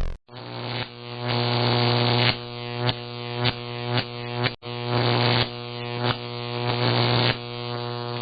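Synthesized sci-fi electronic sound effect: a steady buzzing hum with many stacked tones that swells and pulses about every half second, cutting out briefly about halfway through.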